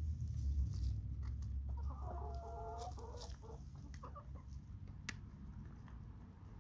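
Hens clucking and pecking at food on a plastic plate: scattered sharp pecking ticks, and one hen's drawn-out, pitched call about two seconds in, lasting over a second. Under it is a low rumble, loudest at the start and fading.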